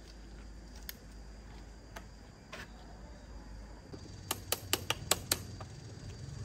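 Sharp metal clicks and taps from a hand tool working the terminal clamp of a tractor battery. A few single clicks come first, then a quick run of about seven about four seconds in.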